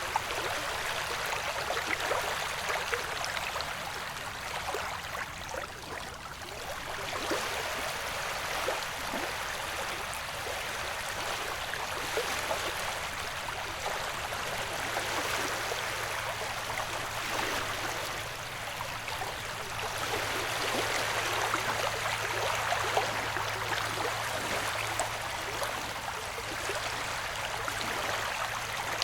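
Ocean waves washing in a steady sound bed, the rush of water swelling and ebbing slowly every several seconds. A faint low hum comes in about halfway through.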